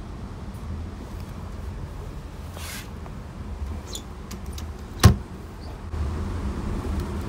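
Steady low rumble of a passenger train, with a brief hiss near three seconds in and a single sharp knock about five seconds in; the rumble grows louder about a second after the knock.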